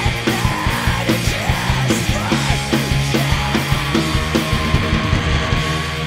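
Rock band playing live: a fast, steady drum beat with cymbals, distorted electric guitars and electric bass, with no singing. A long held high note carries over the last couple of seconds.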